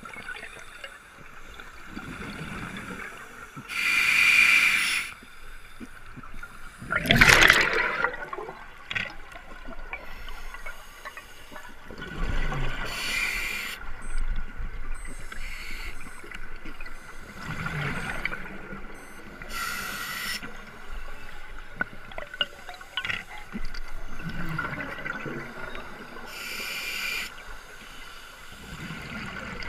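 Scuba divers' exhaled breath bubbling out of their regulators underwater: a bubbling rush every few seconds, loudest about seven seconds in.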